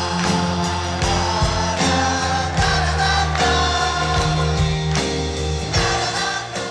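Rock band music: a sung melody, possibly with several voices together, over bass, guitar and regular drum hits.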